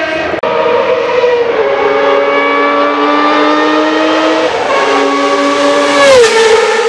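Ferrari 640 Formula 1 car's 3.5-litre V12 at full throttle, a high, sharp engine note that steps down in pitch about a second and a half in and again past four seconds as it shifts up. Near the end it is loudest and falls in pitch as the car goes by.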